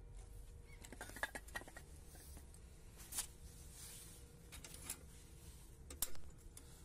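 Faint, scattered clicks and scrapes, with a cluster of them about a second in, a sharper click at three seconds and another near the end.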